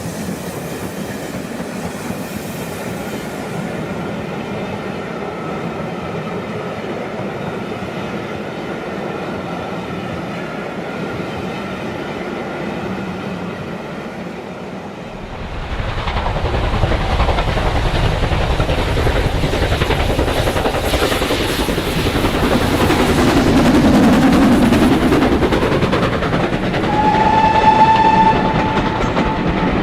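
Model train running on track with a steady hum. About halfway through it grows louder, with a rumble of wheels on the rails, and near the end a short whistle sounds for about a second and a half.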